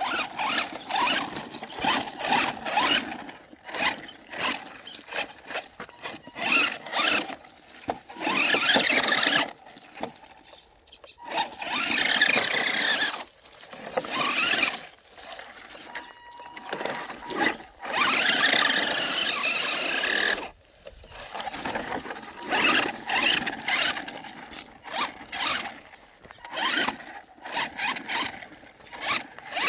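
Maverick Phantom XT radio-controlled car driving off-road, its motor whining in many short bursts of throttle, with longer runs of a few seconds each about eight, twelve and eighteen seconds in.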